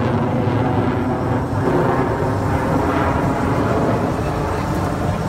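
Military jet engine noise overhead, a steady loud rumble.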